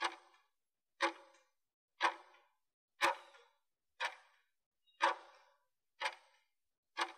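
Interval timer's countdown ticking, one short tick each second, eight in a row, counting off the last seconds of a work interval.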